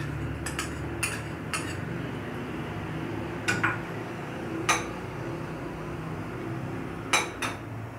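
Short sharp clinks of dishes, a small ceramic bowl and a glass mixing bowl knocking, scattered through, as oil is poured in and the bowl is handled. A steady low hum runs underneath.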